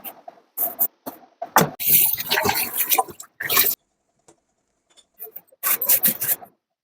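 Tap water splashing onto utensils in a kitchen sink, in uneven bursts with a short clatter or two, stopping for about a second and a half midway.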